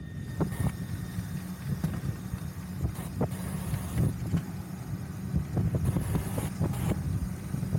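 Wind rumbling on the microphone during a ride, with scattered sharp clicks and rattles from the moving vehicle.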